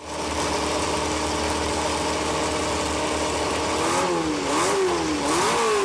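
BRM's 3.0-litre H16 Formula One engine idling steadily, then blipped repeatedly from about four seconds in, its pitch rising and falling a little more than once a second.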